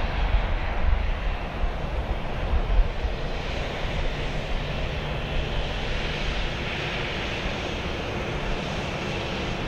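Jet airliner engines at takeoff power, a steady rushing noise with a deep rumble underneath, swelling and easing as the aircraft runs down the runway and climbs away. Near the end a faint steady whine comes in.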